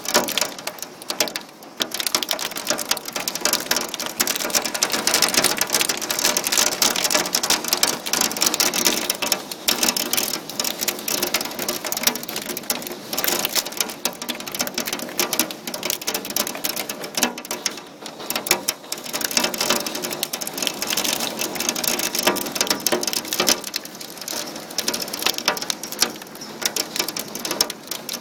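Heavy hail pelting down: a dense, continuous clatter of many hard impacts that swells and eases.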